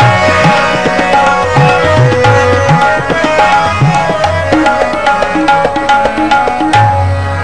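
Harmonium and tabla playing the kirtan accompaniment: held harmonium notes and chords over a steady tabla rhythm, with the bass drum's strokes sliding in pitch.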